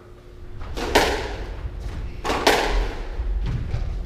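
Squash ball struck by rackets and hitting the court walls during a rally: sharp hits in close pairs, about a second and a half apart, echoing in the enclosed court.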